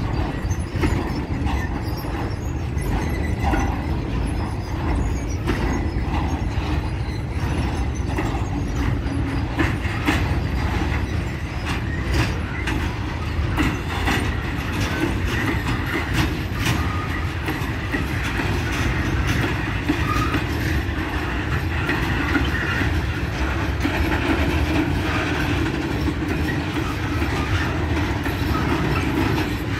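Freight train rolling past, its covered wagons giving way to flat wagons: a steady rumble of steel wheels on rail with repeated clacks and knocks as the wheels cross rail joints.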